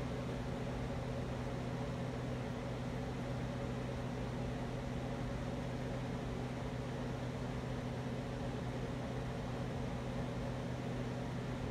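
Spirit box radio scanner sweeping, giving a steady static hiss with a low hum under it.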